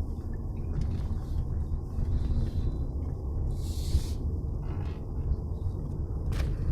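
Steady low rumble of a Tata Nexon driving slowly, with a short hiss about four seconds in and a sharp click near the end.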